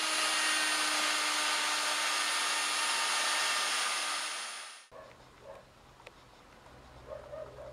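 Electric plunge router running steadily with its bit cutting the croze, the groove for the head, into the rim of an oak barrel. It is a loud, even whine mixed with cutting noise that fades out about five seconds in.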